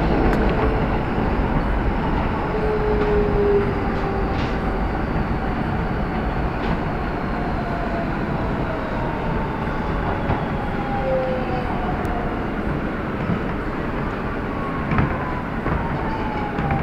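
An R160 subway car, heard from inside, rolling into a station and slowing. The steady rumble of wheels on rail eases off while the electric propulsion's whine glides down in pitch as the train brakes, and there is a brief knock about 15 seconds in.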